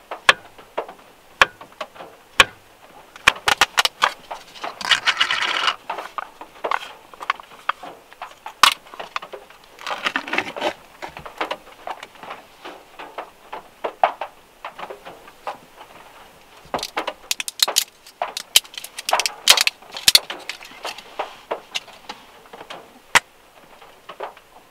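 Food-preparation handling sounds: a knife clicking and tapping against a wooden cutting board while a banana is sliced, then rustling and crinkling as a plastic food cup and its lid are handled, with many scattered sharp clicks and a few longer rustling stretches.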